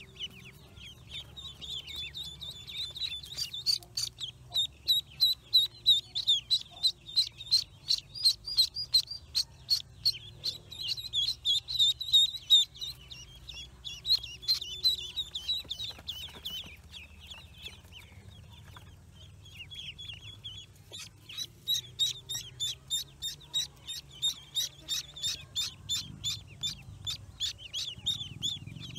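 A brood of newly hatched ducklings peeping shrilly and rapidly, about three or four peeps a second, as a hand reaches in among them and picks them up. The peeping thins out for a few seconds past the middle, then picks up again.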